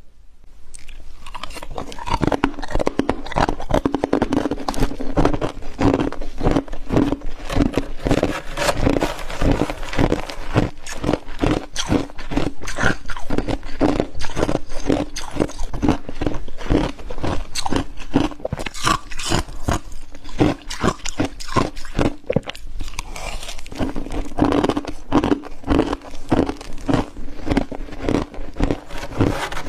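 Close-miked biting and chewing of freezer frost: dense, rapid, irregular crunching that starts about a second in.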